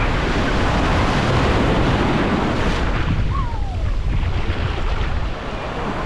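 Atlantic Ocean surf breaking and washing up the beach, a dense steady rush heaviest in the low end, with wind buffeting the microphone.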